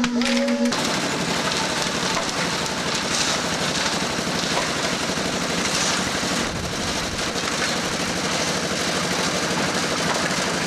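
Construction-site machinery running steadily: an engine sound with a dense rattle and hiss that starts abruptly about a second in.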